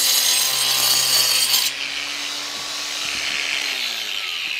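Makita 18-volt cordless angle grinder with a diamond blade cutting through a brick, a harsh grinding hiss over the motor's whine. The cutting stops about a third of the way in; the motor keeps spinning and then winds down near the end.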